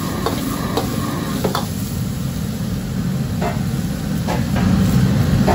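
Stir-frying long beans in a steel wok over a gas wok burner: a steady low rumble from the burner under a sizzle, with a handful of sharp clinks and scrapes of the metal ladle against the wok.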